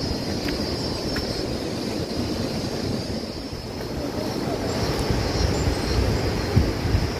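Steady rushing noise of a steaming geothermal fumarole field, with wind gusting on the microphone and a steady high hiss over it.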